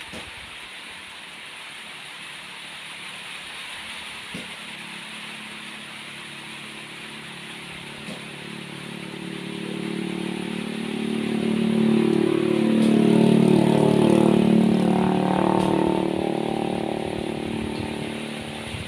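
A motor vehicle's engine approaches, passes and fades away, loudest about two-thirds of the way in, over a steady hiss of rain.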